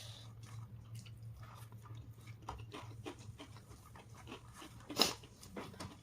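A person chewing and smacking on food with the mouth close to the microphone: a run of short, irregular wet clicks, with one louder smack or crunch about five seconds in, over a low steady hum.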